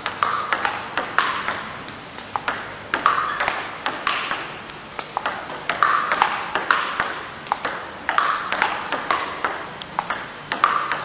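Table tennis rally: a celluloid-type plastic ball clicking off rubber-faced bats and bouncing on the table, in a quick, even run of sharp clicks, a couple each second. One of the bats is fitted with Milky Way Neptune long-pimple rubber.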